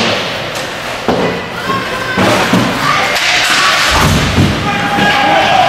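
Ice hockey game sounds: repeated heavy thuds, the loudest about four seconds in, with voices calling out.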